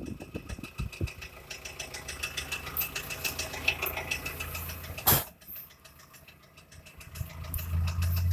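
VW 2.0 TDI BKD diesel engine idling with a rapid ticking knock, the fault being shown. About five seconds in there is a single sharp click, after which the ticking drops away, and near the end a steady low hum comes in.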